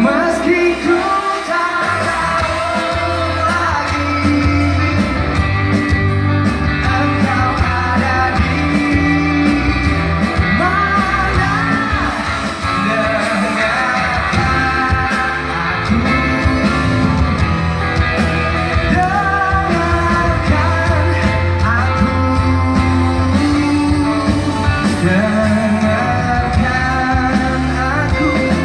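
Live pop-rock band playing a ballad, with drums, bass, guitars and keyboard under a male vocal, heard from the audience in a large hall.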